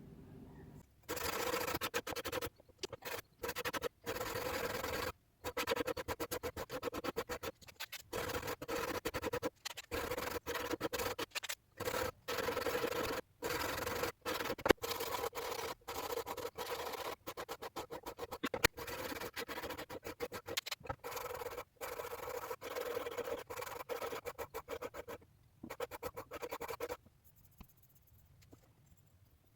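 Steel knife blade being ground against an abrasive for sharpening: a rasping scrape in many short stretches broken by sudden brief gaps, fading out about 27 seconds in.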